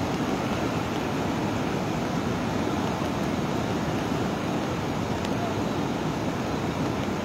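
Steady rushing noise of a muddy river in flood, running high and carrying debris, its water still rising after what is taken to be a cloudburst upstream.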